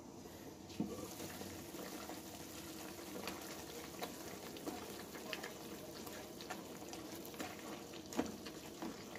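Pork chops braising in sauce in a frying pan, the sauce simmering with a steady bubbling hiss while a wooden spatula stirs and turns the meat, with small clicks and a sharper knock about a second in and again near the end.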